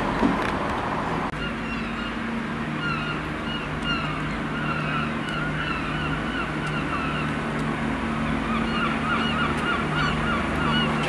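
Birds calling in a rapid run of short, repeated chirps that start about two seconds in, over the steady low hum of a diesel train engine.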